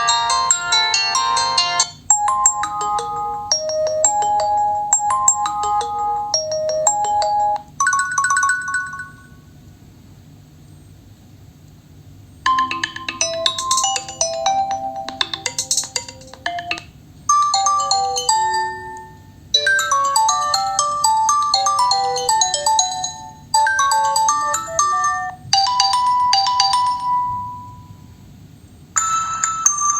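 Nokia 3.4 smartphone's loudspeaker playing its preset ringtones one after another. Each is a short electronic melody of clean tones that stops abruptly after a few seconds before the next begins. There is a pause of about three seconds roughly a third of the way in.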